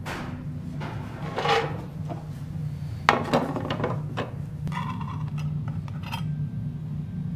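Metal utensils and dishes clinking and clattering on a teppanyaki counter, with one sharp clank about three seconds in and a brief ringing clink near five seconds, over a steady low hum.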